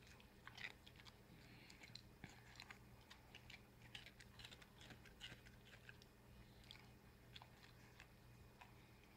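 A Jack Russell terrier crunching and chewing dry kibble and sliced celery from his bowl: an irregular run of short, sharp crunches, several a second.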